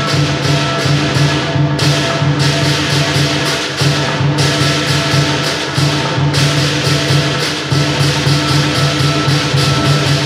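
Lion dance percussion: a big drum with cymbals clashing rapidly, about four times a second, over a ringing gong. The cymbals break off briefly a few times and then resume.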